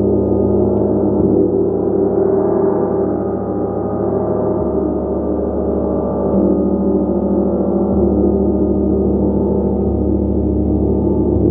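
A gong played continuously: a dense, sustained wash of overlapping ringing tones with no gaps. Its deepest tones shift every three to four seconds as the playing goes on.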